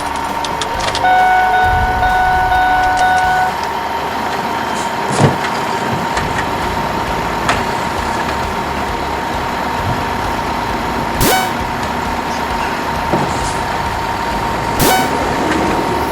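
A vehicle horn sounds one steady honk held for about two and a half seconds over a constant tone, followed by several sharp clicks or knocks spaced a few seconds apart.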